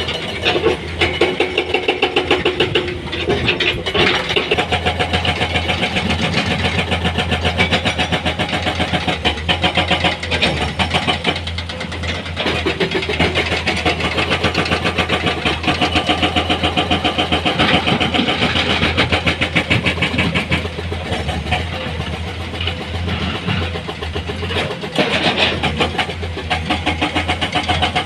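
Heavy diesel engine of earth-moving machinery running steadily at close range, with a rapid, even pulsing and some rises and falls in level.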